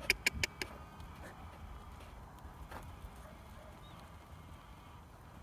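A quick run of about six sharp clicks in the first second, then only a faint, steady low background.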